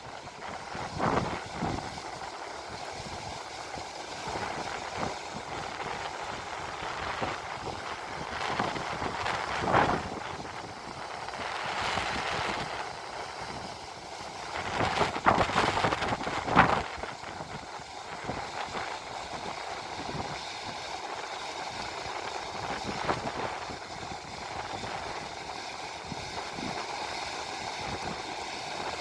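Steady rush of river water pouring over a weir. A few louder swells of noise come through, about ten seconds in and again around fifteen to sixteen seconds.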